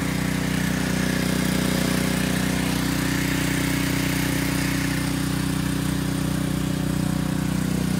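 Pressure washer running steadily: an even motor drone under the hiss of the water spray, as a degreased engine bay is rinsed.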